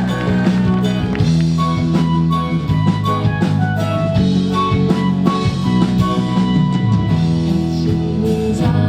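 Live band playing an instrumental passage of a pop song, with a drum kit keeping a steady beat under sustained guitar notes.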